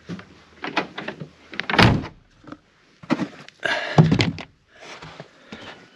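Knocks and thumps against a pickup truck's covered bed, with rustling of clothes and bedding, as a person shifts about inside the cramped bed. The two loudest thumps come about two seconds in and about four seconds in.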